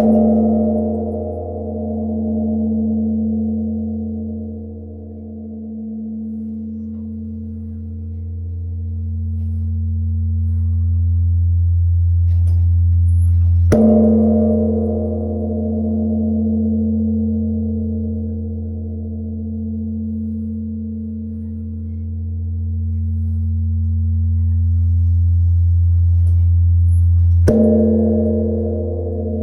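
Large bronze Buddhist temple bell struck three times, about fourteen seconds apart. Each strike leaves a long, deep ringing hum that swells and fades slowly as it dies away.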